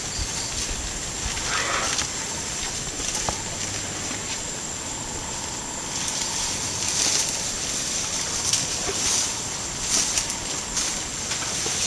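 Outdoor ambience: a steady hiss with a thin high whine, and scattered crackles and clicks that grow more frequent in the second half.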